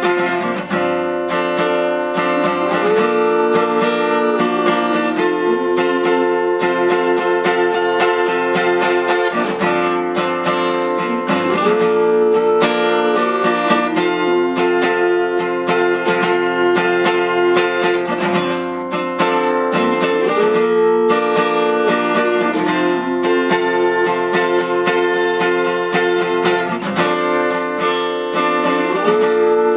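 Acoustic guitar played in a steady picked and strummed accompaniment, cycling through a chord pattern that repeats about every eight seconds, with a wordless sung melody rising and falling over it.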